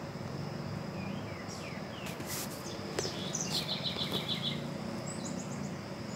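Marmosets calling in the canopy: a few short rising chirps, then a quick run of about eight high notes and a brief higher twitter. A steady high insect drone and a low rumble lie underneath, with one sharp click about three seconds in.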